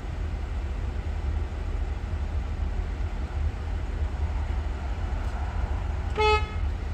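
A vehicle's steady low rumble of engine and road noise, with a short pitched tone about six seconds in.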